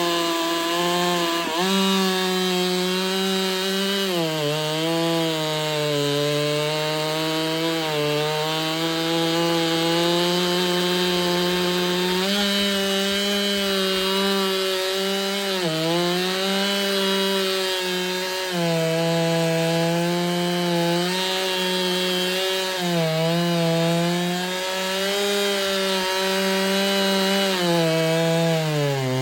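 Ported Husqvarna 395 two-stroke chainsaw running at full throttle in a long cut through wood. Its engine note holds steady and dips in pitch a few times under load, then recovers.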